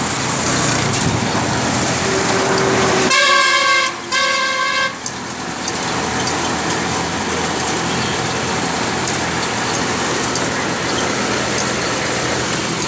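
A vehicle horn honks twice about three seconds in, each blast just under a second long, over steady engine running noise.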